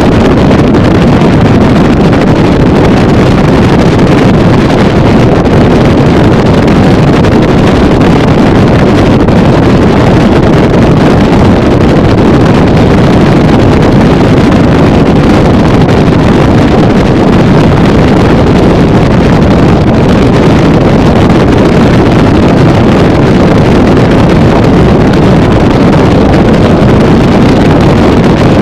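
Motorboat running at speed: a loud, steady rush of wind on the microphone over the boat's engine and hull noise.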